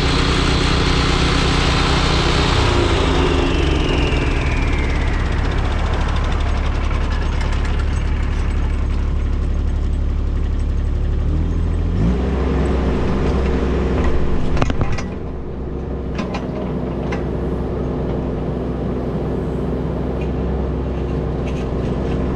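Machinery engines running steadily on a concrete-removal job, with a high whine that falls in pitch over the first few seconds. About twelve seconds in the engine note shifts upward. A few sharp knocks and clatter follow, after which the sound settles somewhat quieter.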